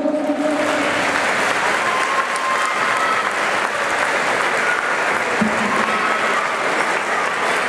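Crowd applauding steadily, with a few short calls over the clapping.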